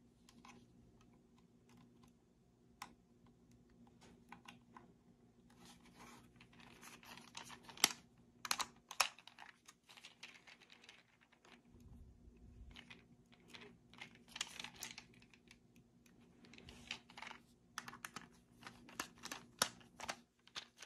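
Faint, irregular small clicks and scrapes of a screwdriver turning the terminal screws on a plastic plug-in power adapter and the adapter being handled, as the screws are tightened down onto the wire ends. The clicks are busiest about eight seconds in and again near the end.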